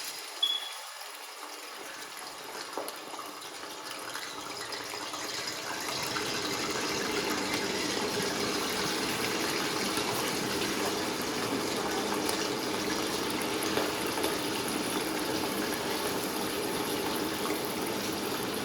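Boneless chicken pieces sizzling in hot oil in a cooking pot, the sizzle growing louder over the first several seconds and then holding steady. A brief clink sounds just after the start.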